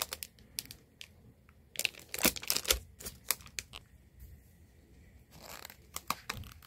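Clear plastic wrap on a paper diary crinkling and crackling in scattered bursts as it is handled and pulled off, then a short paper rustle as the diary is opened near the end.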